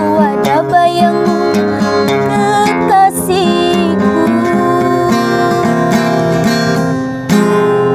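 Acoustic guitar with a capo played by hand, picking out a melody over bass notes, with a sharp strum near the end.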